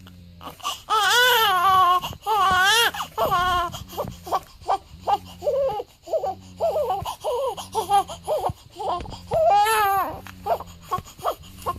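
Week-old newborn baby crying: a few long, wavering wails, then a run of short choppy cries, and another long wail near the end.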